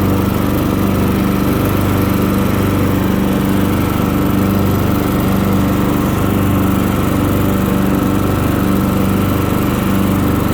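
Craftsman LT1000 riding lawn mower running steadily with its mowing deck engaged. The engine is the main sound; the deck blades are nice and quiet under it.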